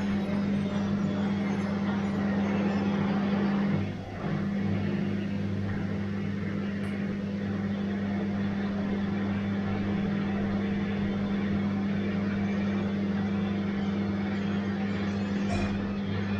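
Bosch washing machine running with a steady low hum, dipping briefly about four seconds in before carrying on.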